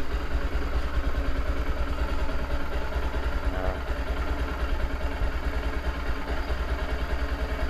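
Suzuki DR650's single-cylinder four-stroke engine idling steadily on its stock exhaust, with an even low thump. The engine is cold and not yet warmed up.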